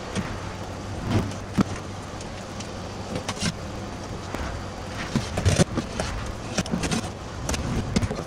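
Scattered clicks and knocks of parts and tools being handled during boat work, over a steady low hum.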